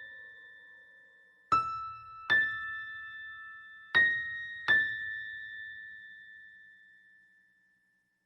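Bell-like keyboard chime notes used as a horror sound effect, struck in two pairs about two and a half seconds apart. Each note rings out and slowly fades, and the last one dies away near the end.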